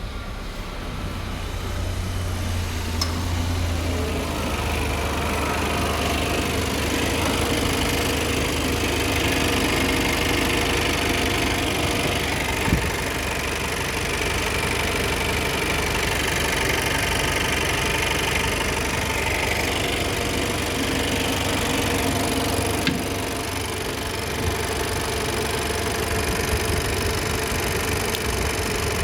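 Vauxhall Astra K's 1.4 petrol engine idling steadily, running with its newly fitted alternator, drive belt and tensioner, with a couple of brief clicks partway through.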